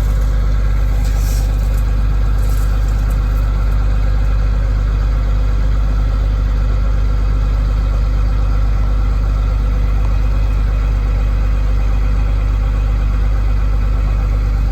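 International 1460 combine's diesel engine running steadily at a constant speed, a loud even hum with no change in pitch.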